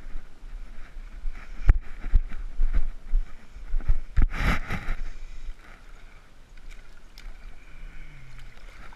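Footsteps and knocks of someone walking off rocks onto sand and into shallow water, with a short rushing, splash-like noise about four and a half seconds in. Wind rumbles on the microphone throughout.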